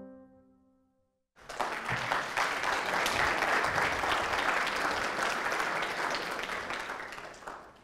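Soft background music fades out. After a brief silence, a congregation applauds for about six seconds, dying away near the end.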